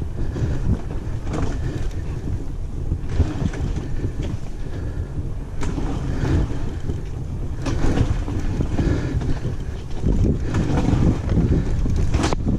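Wind buffeting the microphone as a steady, loud, low rumble.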